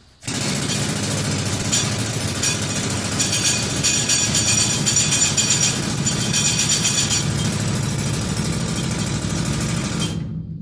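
Old pneumatic hard-rock mining drill of the 'widow maker' kind, mounted on a column bar, running free on compressed air without drilling into rock. It gives a loud, rapid, steady hammering that starts abruptly and cuts off suddenly near the end.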